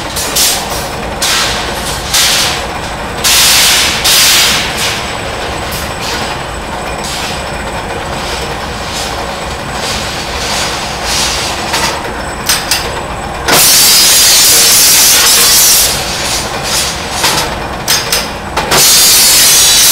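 A rebar-processing machine running steadily, with clicking and clanking as steel bars move through it. Several loud hissing bursts come in, the longest lasting about two and a half seconds, beginning about 13 seconds in.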